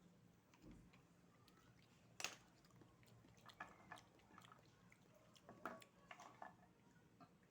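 Quiet eating at the table: scattered faint clicks and small wet sounds of oysters and their shells being handled and eaten, with one sharper click about two seconds in.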